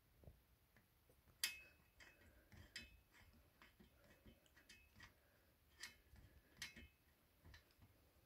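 Faint, irregular metallic clicks and light clinks as screws are tightened into a standing desk's metal support plate, the sharpest about a second and a half in.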